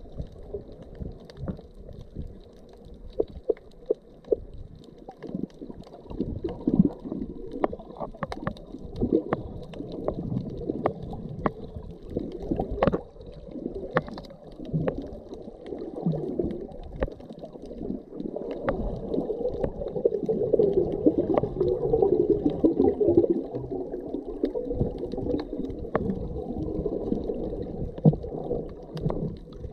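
Underwater sound heard through a submerged camera: a muffled, low wash of moving water with many scattered sharp clicks and pops, growing louder a little past the middle.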